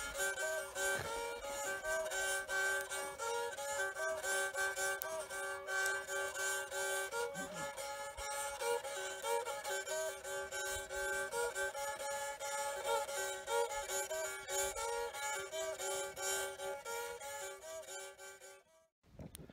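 A gourd-bodied stick fiddle played with a bow, a repeating melody of held notes over a steady low drone note. It cuts off about a second before the end.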